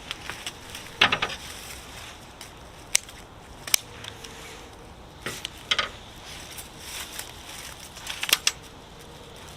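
A few sharp crunches and clicks at uneven spacing, the loudest about a second in and again near the end, over a faint steady outdoor background.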